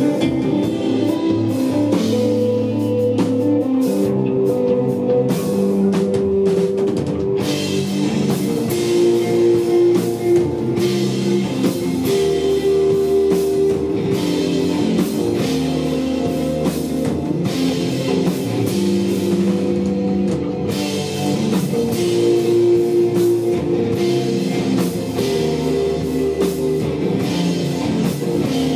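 Live desert rock band playing: electric guitar and bass over a drum kit in a slow, laid-back groove, with the cymbals and drums coming in fuller about seven seconds in.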